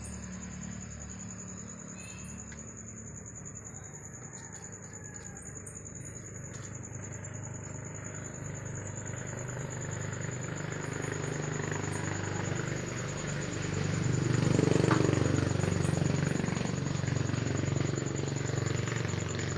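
A motor vehicle's engine grows louder, loudest about fifteen seconds in, then keeps running nearby, over a steady high-pitched whine.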